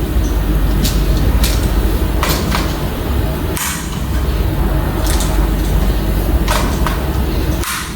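Modular miniature circuit breakers being snapped onto the DIN rail of a consumer unit: a series of sharp plastic clicks, spaced irregularly about a second apart, over a steady low hum.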